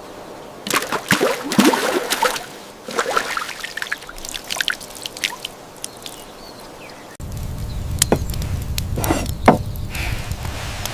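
Water splashing and trickling in short, irregular bursts; the background changes abruptly to a steadier, fuller sound about seven seconds in.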